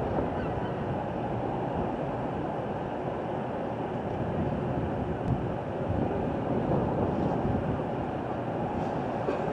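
Steady outdoor ambient noise, low and even, with no distinct events.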